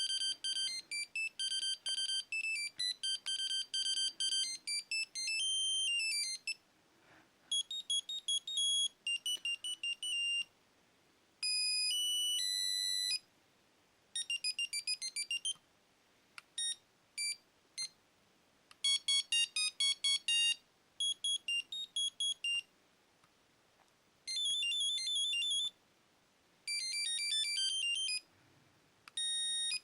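Nokia 7110's built-in monophonic ringtones, beeping melodies played one after another in short previews. There are about nine, each lasting a second and a half to six seconds, with brief pauses between them.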